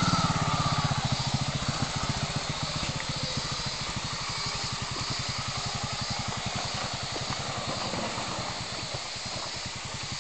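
Off-road motorcycle engine chugging at low revs, a rapid, even run of exhaust pulses. It is loudest at the start and settles a little quieter as the bike rides slowly along the trail.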